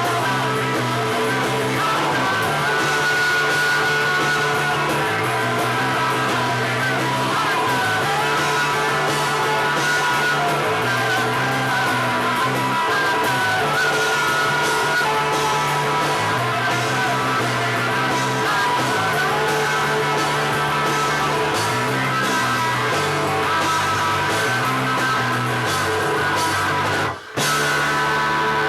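A new wave rock band playing live: electric guitar, a repeating bass line, percussion and singing. The sound cuts out for a moment near the end.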